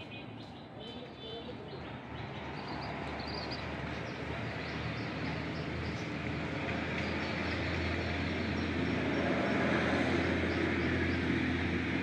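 Steady low rumble of a passing vehicle growing gradually louder, with faint high bird chirps over it.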